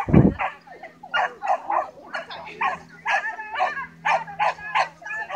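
Dog barking in a quick string of short barks, about two a second, after a low thump at the very start.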